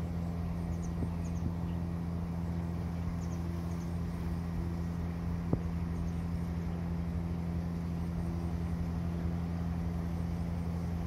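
A steady low mechanical hum, with a single sharp click about five and a half seconds in.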